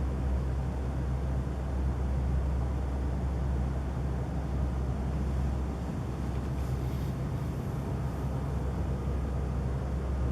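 Steady low rumbling drone with no breaks, a deep hum under a faint hiss: the unexplained 'strange noise' heard in the night sky.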